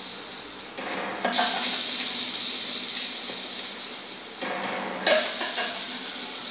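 A steady hiss that turns suddenly louder about a second in and again near five seconds in, with faint voices underneath.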